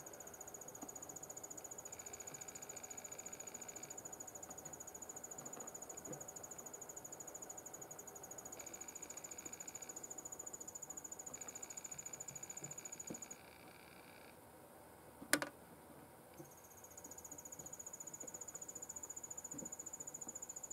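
A continuous high-pitched insect trill, like a cricket's, that breaks off for about three seconds past the middle and then resumes. A single sharp click, the loudest sound, comes during the break.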